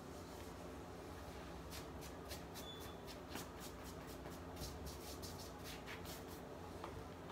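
A wig being pulled off the head and handled: a run of quick, faint rustles and crackles of hair against the wig cap.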